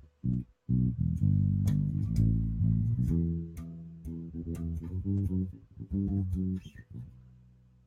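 Bass guitar played solo: a run of plucked notes, a few short choppy ones at first, then longer ringing notes with string clicks between them. The last note fades out near the end.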